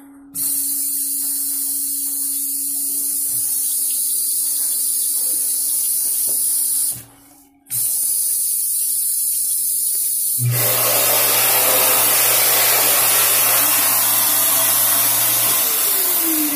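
Bradley touchless sensor faucet spraying water into the basin, cutting off for under a second and starting again. About ten seconds in it gives way to the unit's built-in hand dryer blowing with a low motor hum, and near the end the dryer's motor winds down with a falling pitch.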